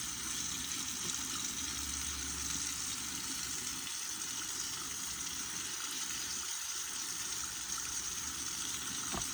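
Tap water running steadily into a sink while a pistol slide is washed with dish soap.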